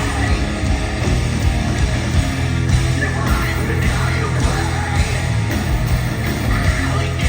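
Post-hardcore rock band playing live and loud, with guitars, bass and drums.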